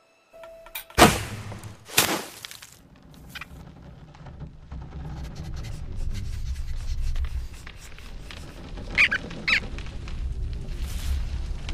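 Two sharp, loud impacts about a second apart, then a low rushing noise that slowly grows louder, with two short high-pitched squeaks near the end.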